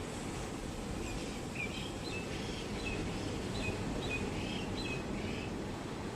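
Steady wash of sea surf breaking on the beach, with a run of short, high bird chirps from about a second in to near the end.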